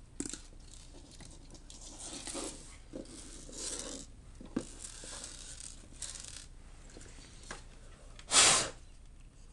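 Scraping, rubbing and rustling of laptop parts being handled and worked apart by hand, with a short, loud puff of noise about eight seconds in.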